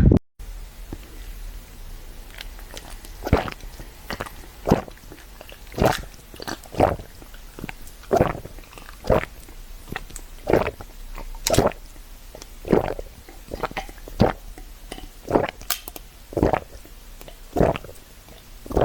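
Close-miked eating sounds: short wet clicks and smacks of chewing, about one or two a second, starting a few seconds in.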